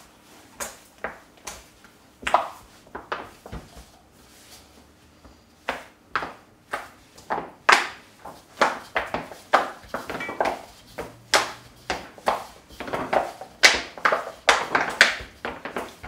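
Soft bread dough being kneaded by hand in a stainless steel bowl: pulled up, stretched and slapped back down, a repeated slap that comes about twice a second in the second half after a lull about four seconds in.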